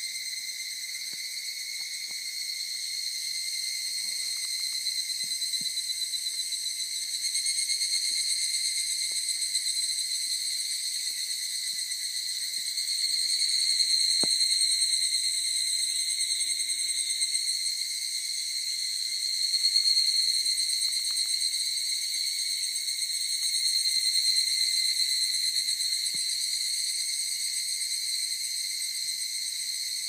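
Cicadas singing: a steady, high-pitched buzz that swells louder and eases back every several seconds.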